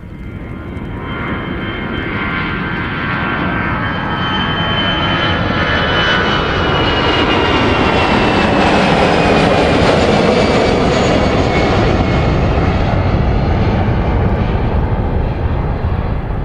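Airliner's engines passing close by, growing louder over several seconds and then easing off slightly, with a high whine that slides slowly down in pitch as it goes past.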